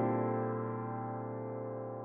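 Background music: one held chord slowly fading away.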